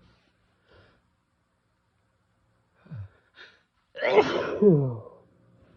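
A person sneezing once. About three seconds in there is a short catching breath with a falling 'ah', and a second later a loud sneeze that ends in a falling voiced tone.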